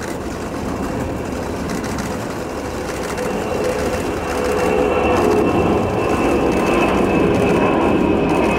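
Airbus A300-600ST Beluga's two General Electric CF6 turbofans at takeoff thrust as it lifts off and climbs: a steady rushing jet noise with a high whine, growing louder about halfway through.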